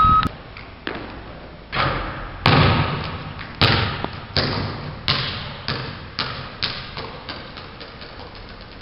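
A series of thuds, each trailing off with an echo, coming closer together and fading out toward the end.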